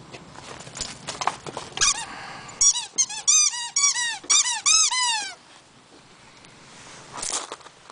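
Squeaker in a Christmas-cracker dog toy being chomped by a Border Collie: about a dozen quick squeaks in a row, each rising then falling in pitch, lasting nearly three seconds. A few sharp clicks come before them.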